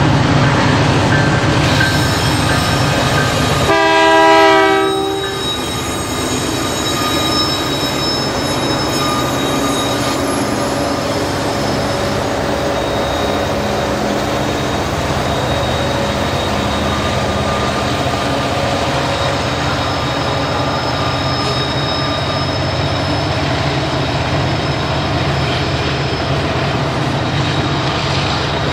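Freight train diesel locomotives and loaded grain cars rolling past close by with a steady low rumble. The lead locomotive's air horn sounds one short blast about four seconds in, the loudest moment. Faint, intermittent high squeals come from the wheels as the cars roll by.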